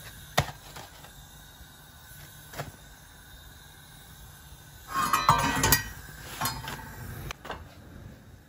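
Metal kitchen tongs clicking sharply a couple of times, then a short, louder burst of clattering and rustling about five seconds in.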